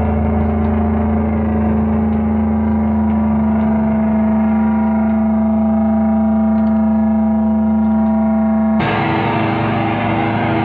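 Electric guitar played through distortion: one chord rings on steadily for about nine seconds, then a new chord is struck near the end.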